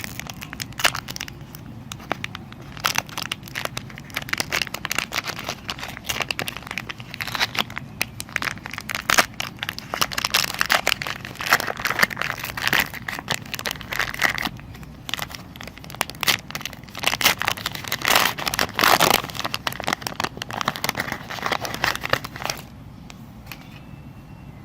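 A knife cutting through a bar of soft soap, making a dense run of crackling clicks and scrapes that stops about two seconds before the end.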